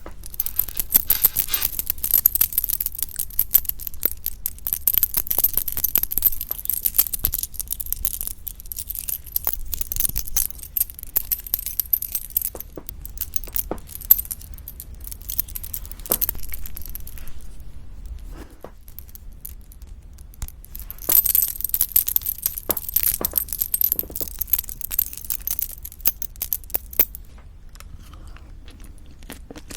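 Close-miked utensil sounds at a meal: rapid clinks and scrapes of a spoon against a bowl, as when mixing bibimbap. They come in two busy stretches, one at the start and one about two-thirds through, with scattered single clinks between.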